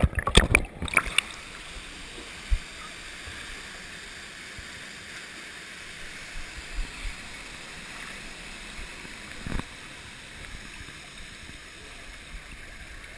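Pool water splashing in the first second, then a steady rush of water running down a water slide.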